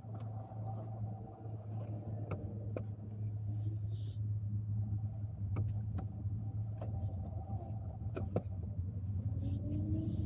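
Car running on the road, heard from inside the cabin: a steady low drone with a few light clicks scattered through it, and the engine note rising near the end.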